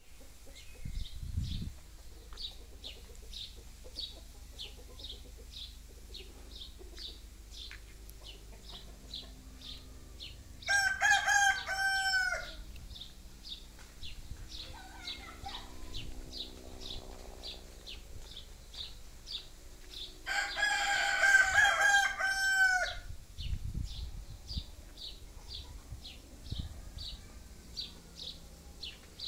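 Rooster crowing twice, about ten seconds apart, each crow lasting around two seconds and the second the louder. Between and under the crows, a small bird gives a short high chirp about twice a second.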